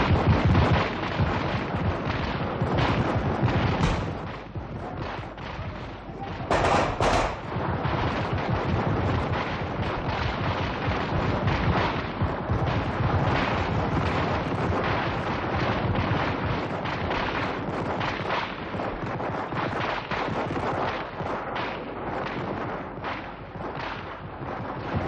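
Dense, continuous gunfire with many shots overlapping, and a louder burst about seven seconds in.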